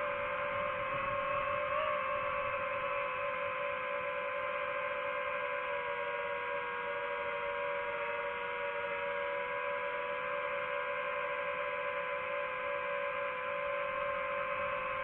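DJI FPV drone's motors and propellers giving a steady, high-pitched whine in flight, with a small pitch wobble about two seconds in and a slight dip in pitch midway.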